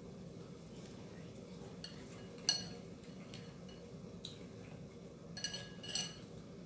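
Chopsticks and spoon clinking against ceramic bowls, a few short ringing clinks: one sharp clink about two and a half seconds in, another near four seconds and a quick cluster near the end, over a steady low hum.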